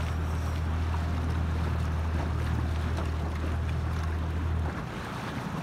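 Outboard motor of a small powerboat running with a steady low hum over wind and water noise. The hum cuts off about three-quarters of the way through.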